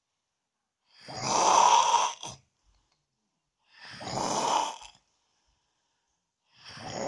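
A person snoring loudly in a steady rhythm: three long rasping snores, about one every three seconds, the first about a second in and the last starting near the end.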